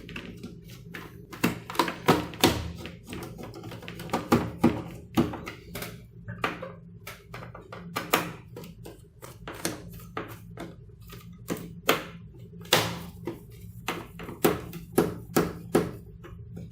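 Irregular clicks, taps and knocks of a screwdriver working the captive screws and handling the plastic back casing of an all-in-one PC as it is opened, over a steady low hum.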